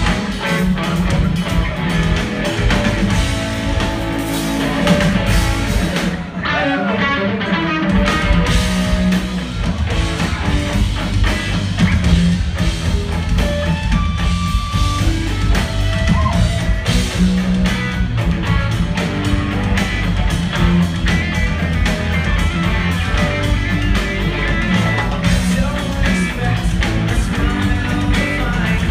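Live rock band playing a song with electric guitar, keyboards and drum kit, heard from among the audience in a concert hall.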